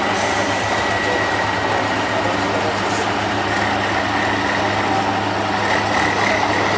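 Tatra 815 8x8 truck's diesel engine running steadily at low, even revs while the truck crawls across a dirt slope, with a steady high whine over the engine note.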